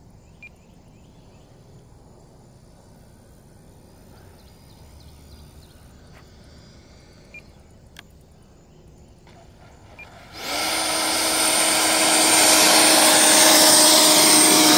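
Electric ducted fan of a Freewing F-86 Sabre 80mm RC jet running close by, a steady loud rush with a high whine. It comes in suddenly about ten seconds in and grows louder, then begins to wind down right at the end as the throttle is cut. Before it, only faint outdoor background.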